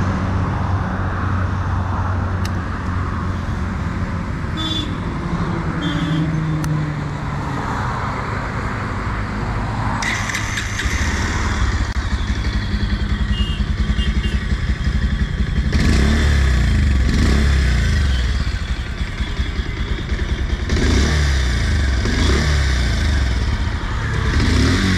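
Bajaj Pulsar 150's air-cooled single-cylinder engine running at idle, with the engine note rising in short throttle blips in the second half. The owner finds the engine rough and poorly refined.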